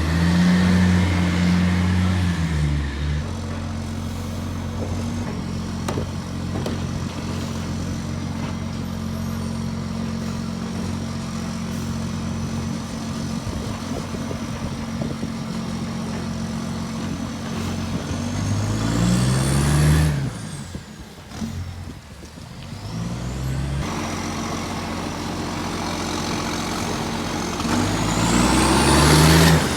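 Garbage truck's diesel engine, which has an exhaust leak, idling and revving up three times: near the start, about two-thirds in and near the end. Each rev-up comes with a rising whine.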